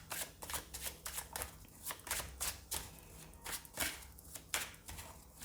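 Tarot cards being shuffled by hand: a run of quick, irregular card flicks and slaps, fairly soft.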